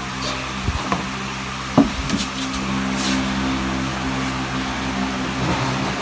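Handling knocks and clicks from a microphone scissor-arm stand and pop filter being adjusted, the loudest about two seconds in, over a steady mechanical hum.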